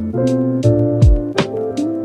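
Background music with a steady beat: a drum pattern with kick and snare under sustained chords and plucked guitar.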